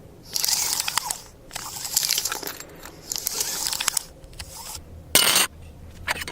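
Foley crunching and tearing noises in three bursts of about a second each, then a short sharp crunch near the end.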